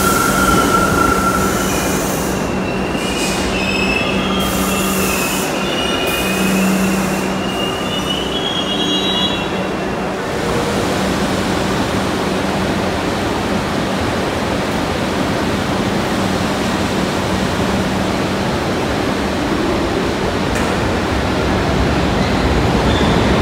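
New York City Subway train running along a station platform, its steel wheels squealing high for about the first ten seconds. After that comes a steady rumble of wheels on rail.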